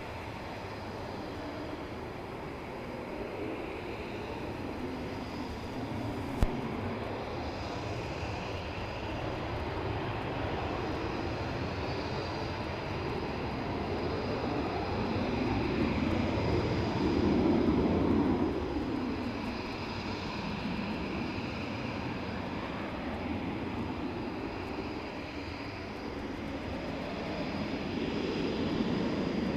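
Jet noise from Eurofighter EF.2000 fighters and their twin Eurojet EJ200 turbofans at takeoff power as they roll and climb away, swelling and fading as each jet passes and loudest a little past halfway. One sharp click comes about six seconds in.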